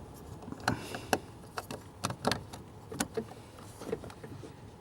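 Light, irregular clicks and knocks of hands working under the dashboard, pushing a new plastic brake light switch into its mounting by the brake pedal.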